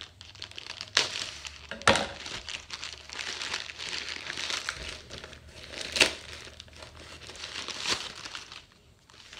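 A thin black plastic bag crinkles and rustles as it is handled and pulled open, with sharp, louder crackles about 1, 2 and 6 seconds in. A paper-wrapped package rustles as it is drawn out of the bag near the end.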